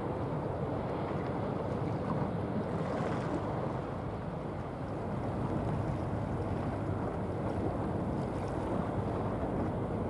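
Steady low rumble of a large bulk carrier passing on the water, mixed with wind buffeting the microphone, easing slightly about four to five seconds in.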